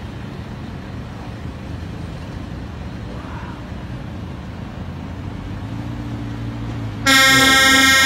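A heavy lorry's engine rumble builds slowly as the truck approaches. About seven seconds in, a loud telolet musical horn suddenly sounds, several horn tones blaring together.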